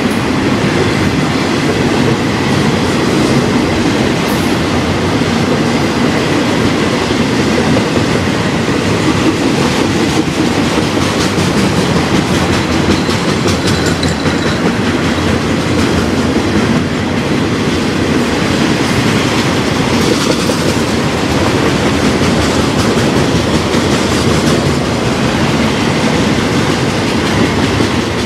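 Long freight train of autorack cars rolling steadily past, wheels clattering on the rails under a continuous, even rumble.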